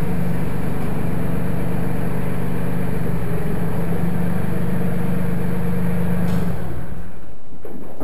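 Mahindra 1526 compact tractor's diesel engine running steadily as the tractor pulls forward out of the detached backhoe. The engine sound drops away about seven seconds in.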